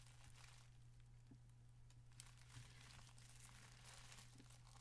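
Near silence: a few faint clicks and soft crinkles of a CD case and its packaging being handled, over a steady low electrical hum.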